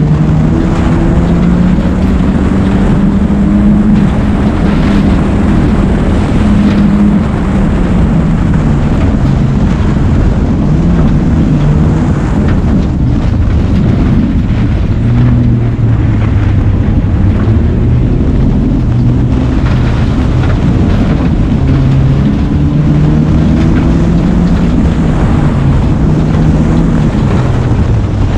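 Race car engine heard from inside the cabin under hard driving, its pitch climbing and dropping repeatedly with gear changes and lifts for corners, over steady tyre and dirt noise from the loose track surface, with scattered clattering knocks from the underside.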